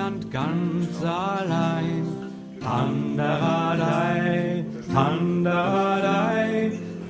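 Background music: a singer performing a medieval-style song over sustained instrumental accompaniment.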